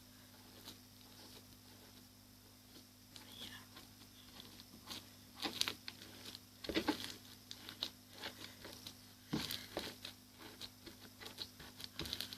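Bead-filled slime being squished and stretched by hand, giving scattered soft crackles and clicks that come in small clusters in the second half.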